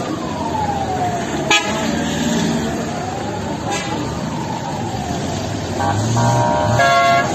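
Convoy siren wailing, sliding slowly up and down in pitch, over the noise of passing vehicles. A sharp click comes about a second and a half in, and vehicle horns honk several times near the end.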